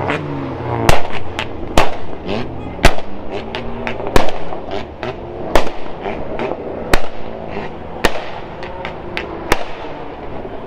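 A car's exhaust giving loud sharp bangs about once every second or so, with smaller pops between, over a running engine whose pitch falls between the bangs: pops and bangs on the overrun as the engine is revved.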